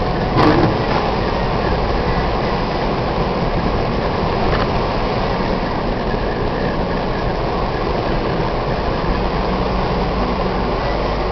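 Steady road and engine noise inside the cabin of a moving 4x4 Jeep.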